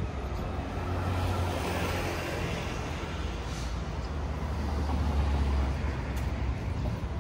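Street traffic: motor vehicles driving past with a low engine rumble and tyre noise, swelling about a second in and again around five seconds.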